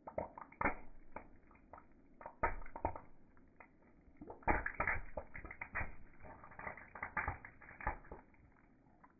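Car tyre slowly rolling over a row of small plastic squeeze tubes of coloured paste, crushing them: irregular crackles, pops and squelches as the tubes burst. The loudest pops come about half a second, two and a half and four and a half seconds in.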